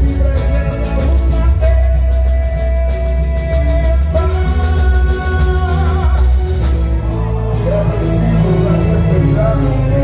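Live boi-bumbá toada: a male lead vocalist singing long held notes into a microphone over an amplified band with heavy bass and drums.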